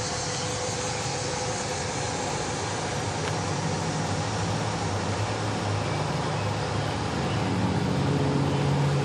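Steady outdoor background noise, with a low hum that grows louder near the end.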